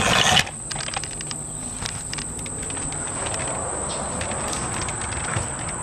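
Insects, crickets, droning steadily at a high pitch, with a short loud rush of noise right at the start and scattered faint clicks.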